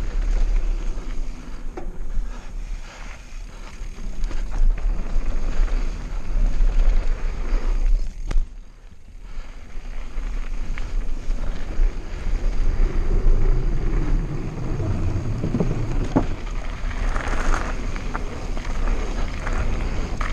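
Wind rushing over the microphone of a camera on a mountain bike descending a dirt trail, mixed with tyre noise from the dirt and occasional knocks and rattles from the bike. The rush eases briefly about eight seconds in, then picks up again.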